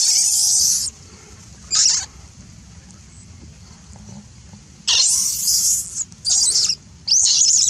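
An infant monkey screaming in shrill, high-pitched shrieks, five in all, the first and fourth nearly a second long, while a dog mouths it.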